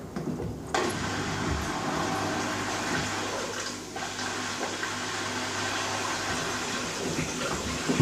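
Front-loading washing machine mid-wash: water starts rushing into the drum suddenly about a second in and keeps running steadily. Under it the soapy load of Birkenstock sandals sloshes and thuds as the drum turns.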